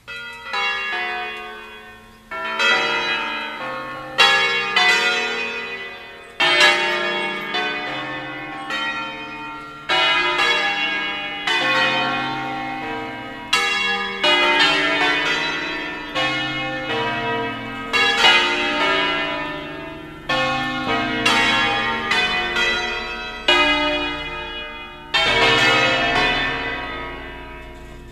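Eight bronze church bells tuned in B-flat, cast by Pruneri in 1909 with three recast by Ottolina in 1948, rung in a melodic sequence as they swing up to the mouth-up position. Strong strokes come about every two seconds, each note ringing on beneath the next.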